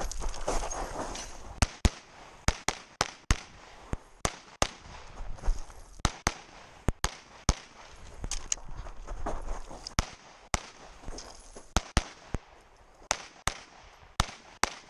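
A string of 9mm pistol shots fired rapidly during a timed practical-shooting stage. Most come in quick pairs, with short gaps between groups as the shooter moves between targets.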